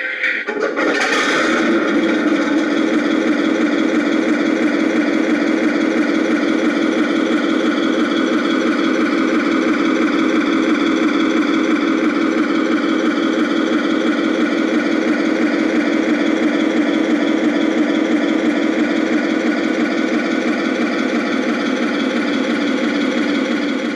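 RC model tank's sound-effects unit playing a simulated tank engine running steadily through its small speaker, after a brief louder burst about a second in.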